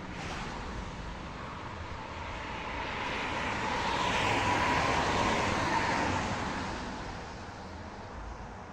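A vehicle driving past. Its engine and road noise swell to a peak about four to five seconds in and then fade away, with a faint steady whine at the loudest point.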